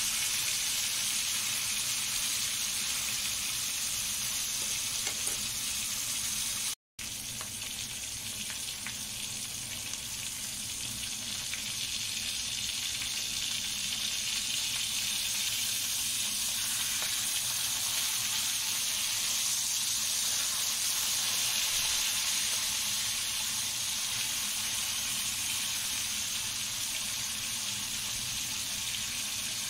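Two beef steaks frying in butter in a nonstick wok, a steady sizzle throughout. The sound drops out completely for a moment about seven seconds in.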